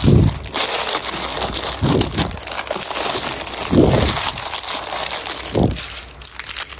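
Plastic bags around squishy toys crinkling and crackling as they are handled and pushed into a cardboard box, with four dull low bumps spread through it.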